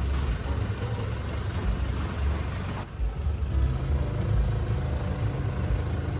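Long-tail boat engine running steadily as the boat moves along, a continuous low drone with a brief dip about three seconds in.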